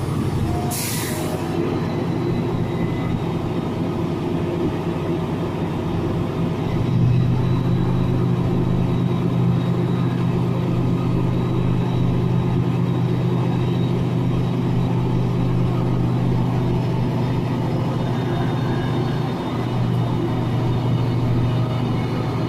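Class 68 diesel locomotive's Caterpillar V16 engine working under power as it hauls a train slowly away, its steady note stepping up louder about seven seconds in and dipping briefly near the end. A short hiss about a second in.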